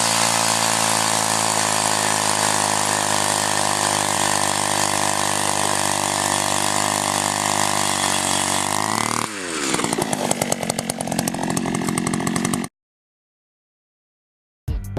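Eskimo Stingray S33 gas ice auger's small two-stroke engine running steadily at full throttle while drilling. About nine seconds in the throttle is let off and the engine drops to an uneven, ticking idle. The sound then cuts out suddenly.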